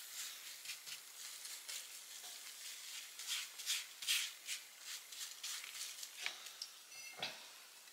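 Makeup brush stirring and scraping clay-mask powder and apple cider vinegar around a disposable plate: faint, irregular scratchy swishes. There is a short low thump near the end.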